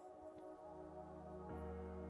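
Quiet, soft ambient electronic background music: sustained chords with a low bass coming in about half a second in and a chord change near the end.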